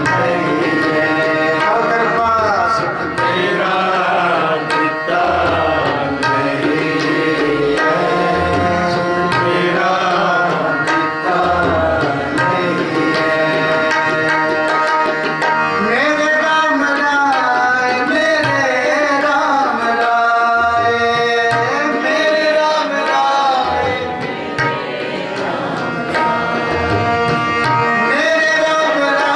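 Sikh kirtan: a male voice singing a shabad to harmonium accompaniment, with tabla keeping a steady rhythm of light strokes and deep bass-drum strikes.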